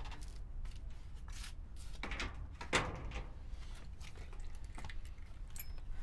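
Door being handled and shut: several short clicks and knocks, the loudest about three seconds in, over a steady low rumble.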